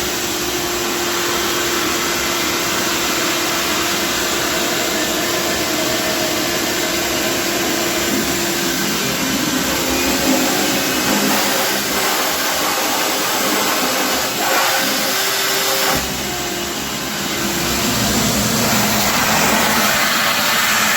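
Shop vac running with its filter off, sucking the remaining water out of a toilet bowl: a loud steady motor whine with gurgling and slurping that changes as the hose takes in water and air.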